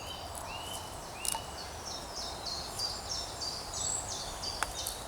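Woodland songbird singing a run of short, quickly repeated notes after a few falling slurs. Two light knocks are heard, about a second in and near the end.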